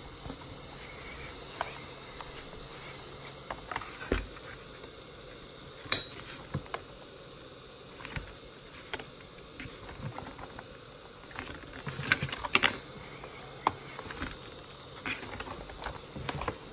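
Heat gun blowing with a steady hum while heating a laptop keyboard's metal back plate, with irregular light clicks and taps of plastic and metal throughout, clustered about twelve seconds in.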